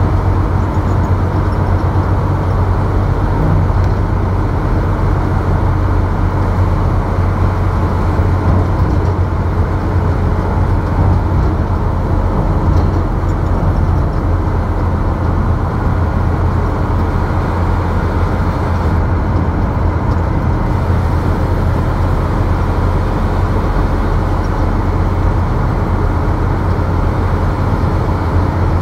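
Steady low rumble of a vehicle driving at speed on a highway: engine and tyre road noise.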